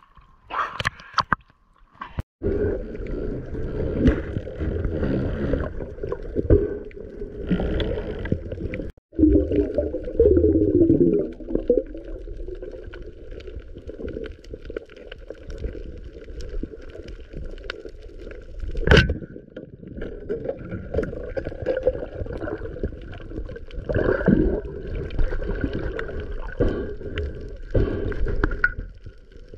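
Water gurgling and sloshing against the camera, a dense, muffled churn, with abrupt breaks about two and nine seconds in and a sharp click a little past halfway.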